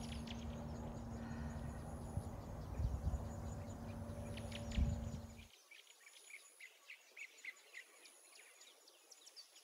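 Birds chirping in short, repeated calls. A low rumble and a steady low hum are underneath them at first, then cut off abruptly about halfway through, leaving only the faint chirps.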